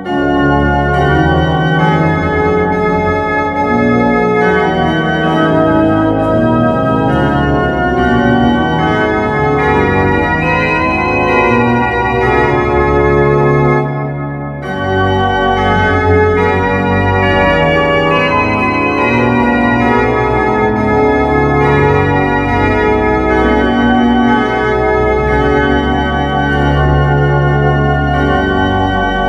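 Sampled pipe organ, the Utrecht Domkerk sample set played from a two-manual home console, sounding a hymn arrangement in full sustained chords with a deep bass line. About halfway through, the sound drops briefly for a breath between phrases before the chords resume.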